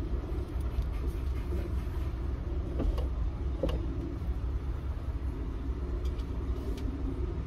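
Car idling, heard as a steady low rumble inside the cabin, with a couple of faint clicks about three seconds in.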